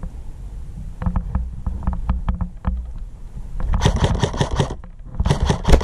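Airsoft electric rifle (AEG) firing two quick full-auto bursts, about 4 s in and again near the end, each a rapid rattle of sharp clicks. Scattered knocks come before the bursts.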